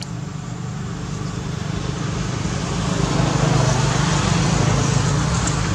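A motor vehicle's engine running. It grows louder over the first three seconds, then holds steady.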